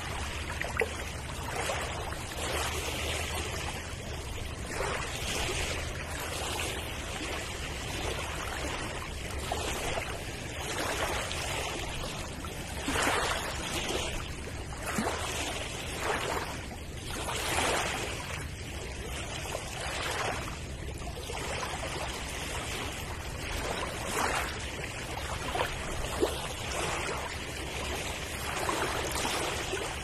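Sea waves washing onto a rocky shore: a continuous rush of surf with the splash and trickle of water among stones, swelling and easing in irregular surges, strongest around the middle.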